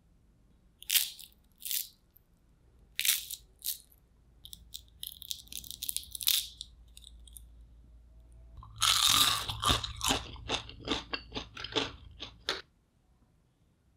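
Crispy deep-fried potato sticks crunching. A few separate sharp crunches come first, then a crackling as one stick's crisp shell is torn open by hand. Near the end comes a louder run of rapid crunches lasting about four seconds.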